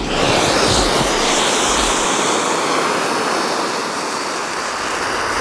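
Two small clay flower-pot fireworks (ground fountains) hissing steadily as they spray sparks.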